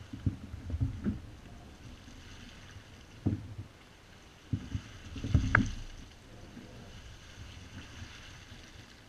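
Low thumps and knocks on a Wilderness Systems Ride 135 fishing kayak as it sits on the water: three in the first second, one about three seconds in, and a cluster around five seconds that ends in a sharp click. A faint steady hiss of water and air runs underneath.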